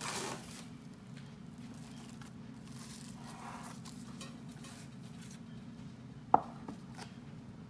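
Kitchen handling sounds over a steady low hum: a brief rustle at the start, a soft shuffle a few seconds in, then one sharp knock of a dish or utensil set down, about six seconds in.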